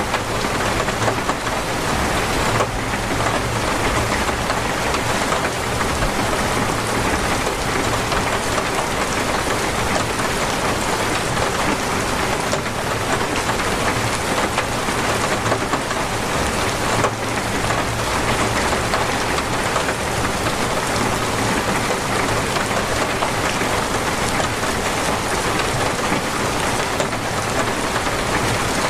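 Torrential rain pouring steadily, a dense, even hiss of drops without let-up.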